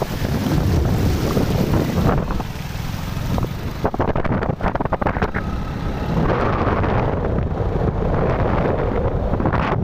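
Motorcycle riding through shallow floodwater, its engine running under water splashing from the wheels, with wind buffeting the microphone.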